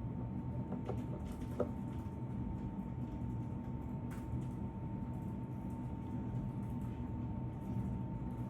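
Steady low background hum with a thin constant tone, broken by a few faint short clicks, the clearest about a second and a half in.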